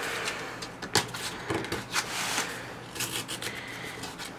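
Rubbing and scratching at the taped edge of a cardboard-stiffened mailing envelope as the tape is picked open, with a few short, sharper scrapes.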